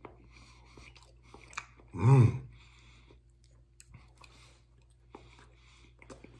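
A person chewing a mouthful of potato salad, with soft wet mouth sounds and small clicks. About two seconds in comes a short hummed 'mm', the loudest sound.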